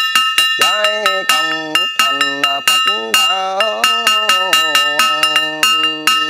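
A small metal bell struck rapidly and steadily, about four strokes a second, its ringing tones carrying between strokes. A chanting voice goes on under the bell.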